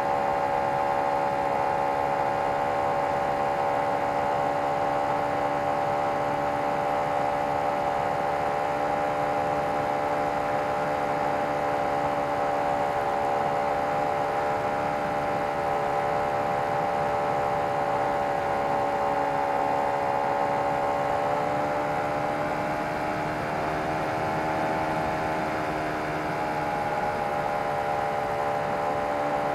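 O.S. FT-120 Gemini II twin-cylinder four-stroke glow engine running steadily in flight, heard close up from on board the model. Its pitch dips a little about two-thirds of the way through and comes back up near the end.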